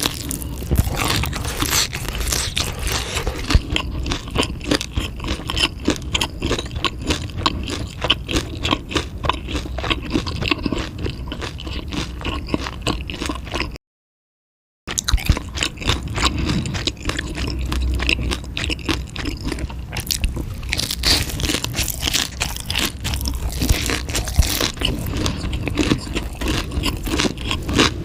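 Close-miked chewing and biting of chewy, crunchy food: a dense run of rapid wet clicks and crunches. It drops out to dead silence for about a second near the middle.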